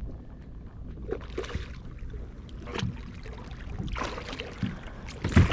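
Water splashing and sloshing around a kayak, with scattered knocks against the hull; the loudest thump comes near the end.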